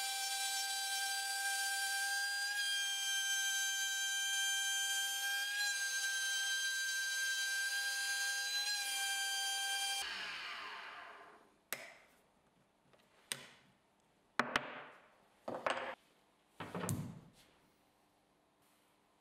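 Rotary tool running at reduced speed in a router jig, its bit cutting through an HPL (high-pressure laminate) sheet with a steady high-pitched whine. About ten seconds in it is switched off and winds down. This is followed by about five short knocks as the cut-out square and panel are handled.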